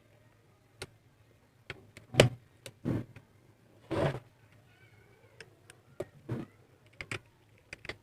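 Plastic clicks and knocks from handling the Bluetooth speaker's casing and parts during reassembly, loudest about two, three and four seconds in.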